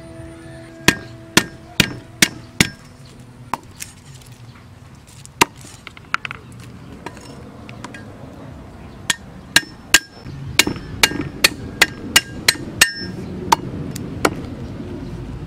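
A cleaver chopping lemongrass stalks on a wooden chopping block, sharp knocks with a short metallic ring. A few strikes come in the first three seconds, then after a pause a quicker run of about a dozen chops at two to three a second.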